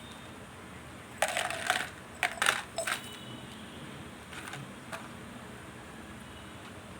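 Mothballs clattering, hard little balls knocking against each other and a hard surface. The clatter comes in two short rushes in the first half, then a couple of faint single clicks.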